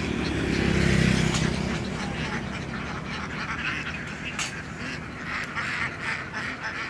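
A large flock of laying ducks quacking in a dense, continuous clamour, crowded together in a wire pen. An engine hums low underneath for the first couple of seconds, loudest about a second in.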